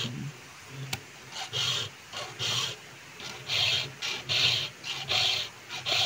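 Round chainsaw file being pushed across the chain's cutters in short, repeated rasping strokes, about one or two a second, as the chain is hand-sharpened.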